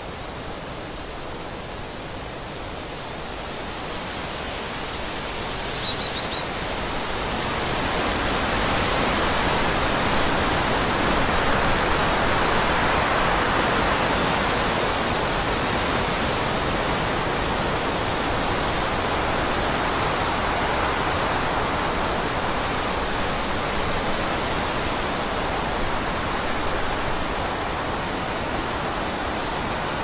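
Forest ambience: a steady rushing noise, like wind through trees or running water, that fades up over the first eight seconds or so and then holds steady. Two faint, short, high bird chirps come about one second and six seconds in.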